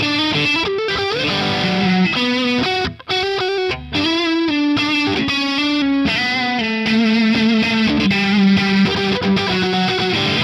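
Distorted electric guitar improvising a melodic line of sustained, bending notes through effects. The sound dips briefly about three seconds in before the line carries on.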